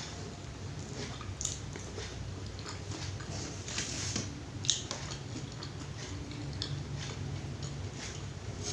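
Close-up eating sounds of a person chewing rice, pecel and tempe mendoan, with small wet mouth clicks and one sharper click about halfway through, over a steady low hum.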